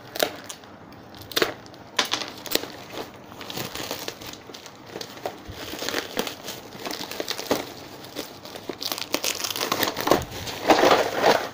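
Plastic bubble-wrap packaging being pulled open and handled: irregular crinkling and crackling throughout, loudest near the end.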